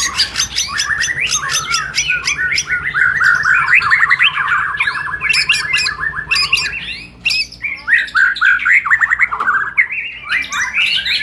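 White-rumped shamas (murai batu) singing: fast strings of sharp chirps and rattling notes, with one long, even trill from about three to nearly seven seconds in.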